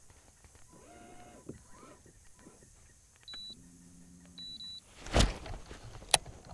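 A small electric motor whirs steadily for about a second and a half, with short high beeps as it starts and stops. Near the end comes a loud sudden rush of noise followed by a sharp click.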